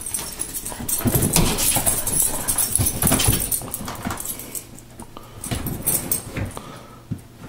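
Small white dog scrabbling and jumping about on a fabric couch while chasing a laser-pointer dot: irregular paw scratches and soft thumps, busiest in the first few seconds and fewer after.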